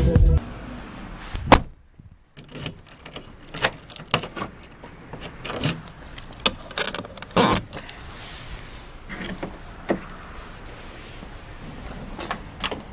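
A car door shutting with a thump about one and a half seconds in, then a run of small clicks, knocks and jangling keys as someone handles the car, with another thump around seven and a half seconds.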